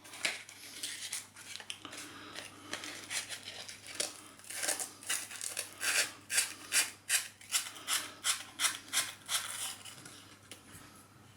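A steel screwdriver head being abraded by hand with oil, in back-and-forth scraping strokes. The strokes are faint and irregular at first, then steady at about two to three a second, and they stop near the end.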